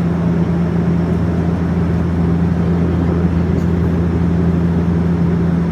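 Steady drone of a passenger jet's cabin: the engines and airflow make an even, unchanging hum.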